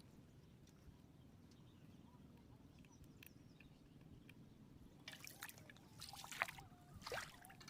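Faint water sounds: trickling and dripping, then a few short splashes and sloshes in the second half, the loudest about two-thirds of the way in.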